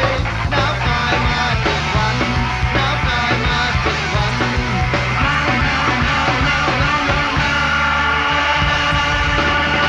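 Rock band recording with electric guitars and drums playing; about seven and a half seconds in, the guitars settle into long held notes.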